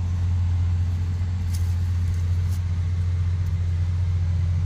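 Steady low hum of a running engine, unchanging throughout, with a few faint clicks.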